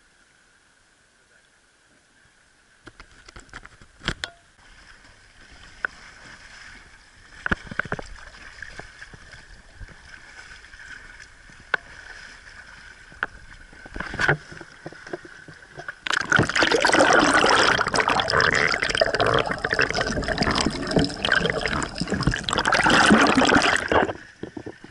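Sit-on-top sea kayak being paddled: water sloshing along the hull, with scattered sharp splashes from the paddle strokes. Near the end, for about eight seconds, it turns into a loud, dense rush of water splashing right at the microphone, close to the waterline.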